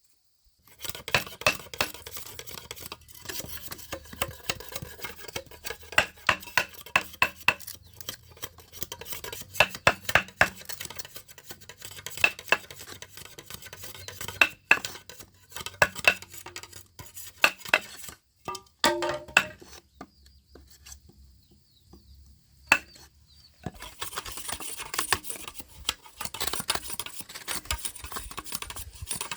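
A run of sharp knocks and clinks of objects being handled, with scraping between them and a short ringing clink a little past the middle. After that comes a pause of about three seconds, then steady scraping.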